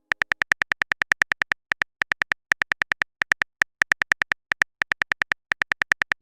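Rapid run of short, identical tapping clicks, about seven a second in uneven bursts with brief pauses: a phone keyboard's typing sound effect as a text message is typed out.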